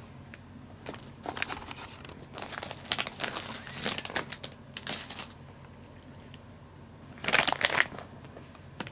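Crinkly rustling of a shiny quilted pad as kittens move about on it. It comes in irregular bursts from about one to five seconds in, and again in a short loud burst about seven seconds in.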